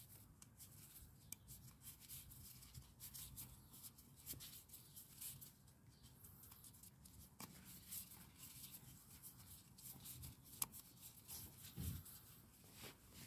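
Faint rubbing and small scattered clicks of gloved hands easing a rubber O-ring onto the plastic oil filter housing cap of a VW 2.0 TDI engine.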